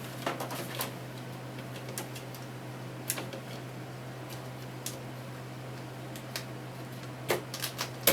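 RAM sticks being pressed into motherboard memory slots: scattered sharp clicks and small plastic knocks as the modules seat and the slot latches snap shut, a few more close together near the end.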